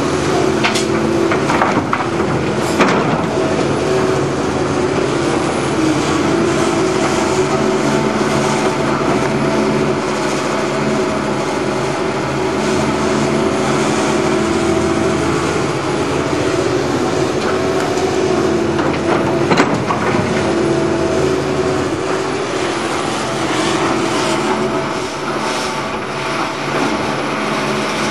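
Long-reach tracked excavator's diesel engine running steadily under hydraulic load while it digs and loads spoil. A few sharp knocks of the bucket and spoil, the loudest about three seconds in and again about twenty seconds in.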